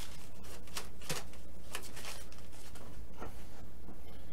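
Light handling noise on a workbench: a few scattered soft clicks and taps as hands handle a paper towel, a small bottle and the airplane's stabilizer, over a steady low hum.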